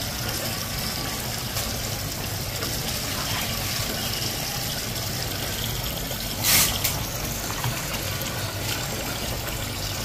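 Steady rush of running water, with a brief louder hiss about six and a half seconds in.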